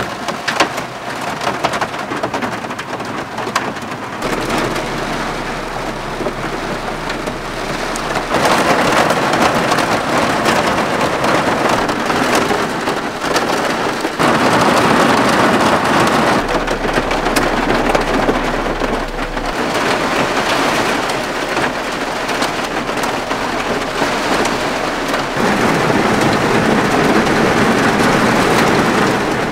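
Heavy rain on a camper van's body and rear window, heard from inside the van: a dense, steady patter whose loudness steps up and down every few seconds.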